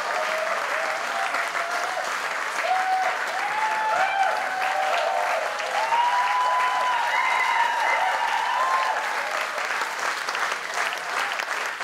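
Concert audience applauding: dense clapping, with long held cheering calls that rise and fall over it.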